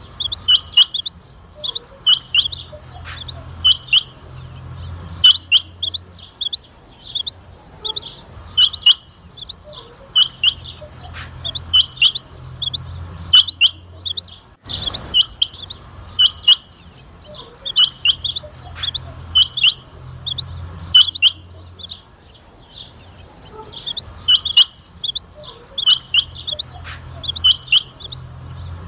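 Rain quail calling: short, sharp, high notes, often in pairs, repeated in quick runs with brief pauses between them. A faint low hum comes and goes underneath.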